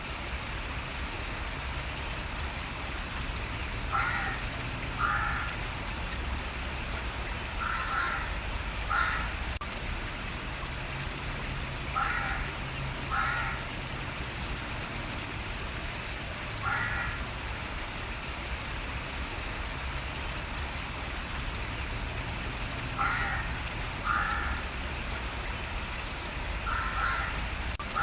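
Running water with a steady rush throughout, and a bird giving short calls, mostly in pairs, every few seconds.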